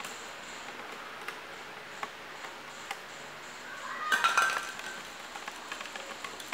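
A baby monkey and a toy poodle scuffling on a tiled floor: scattered light clicks, then about four seconds in a short burst of scrabbling with a brief high squeak as the monkey grabs the dog.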